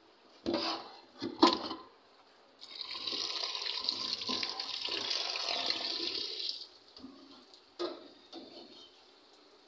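Kitchen tap running into a steel bowl of cubed potatoes in a stainless-steel sink for about four seconds as the potatoes are rinsed. A couple of sharp knocks come before the water, and one more short knock comes near the end.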